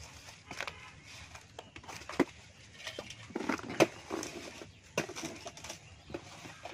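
Hands peeling and snapping apart the wet layers of a banana trunk: irregular crackling and tearing with several sharp snaps, the loudest about two and four seconds in.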